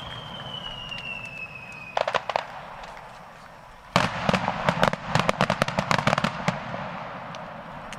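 Fireworks going off. A whistle falls slightly in pitch, then a short cluster of bangs comes about two seconds in, and from about the middle a rapid string of crackling reports lasts some two and a half seconds.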